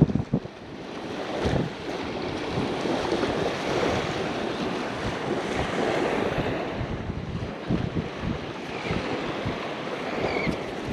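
Wind buffeting the microphone in gusts over the steady wash of surf on a beach.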